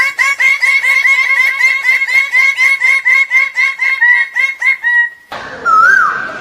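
A bird calling a rapid, even series of repeated notes, about five a second, for about five seconds. After a sudden change in the background, a single whistled note rises and falls near the end.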